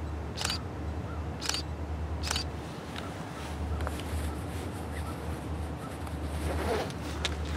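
Low, steady rumble of a distant freight train's diesel locomotives working under exhaust. A few short, sharp clicks break in, three in the first couple of seconds and one near the end.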